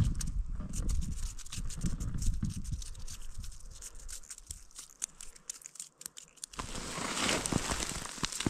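Wind buffeting the microphone as a low rumble through the first few seconds, with scratchy, crinkling handling noises and clicks; a hiss of wind comes up near the end.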